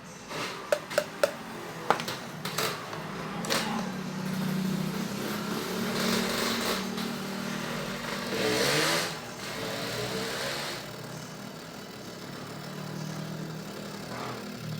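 A few sharp clicks, then the DVD player's drive mechanism running: a small motor with a steady low hum that swells and eases a few times.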